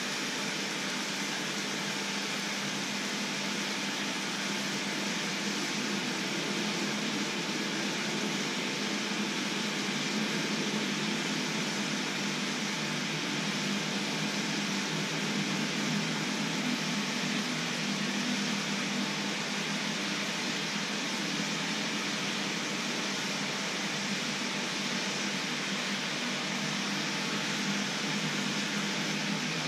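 Water at a rolling boil in a shallow two-handled pan on an electric hob, making a steady bubbling noise.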